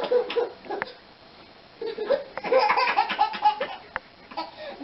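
A baby laughing in high-pitched bursts: a short laugh at the start, a longer run of giggles in the middle, and a brief one near the end.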